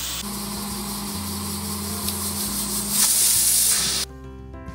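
Stovetop pressure cooker whistling: steam hissing out steadily past the weight valve, which shows the cooker has come up to pressure. The hiss grows louder about three seconds in and cuts off suddenly about a second later, leaving soft background music.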